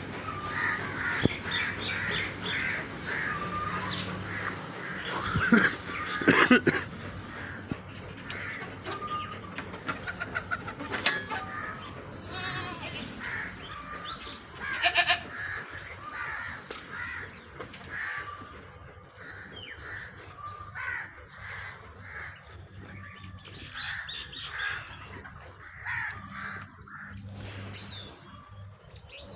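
Crows cawing over and over, with a few sharp knocks, the loudest about six seconds in.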